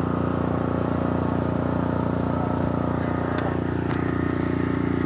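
An engine running steadily at idle, an even, pulsing hum, with a couple of faint clicks about three and a half seconds in.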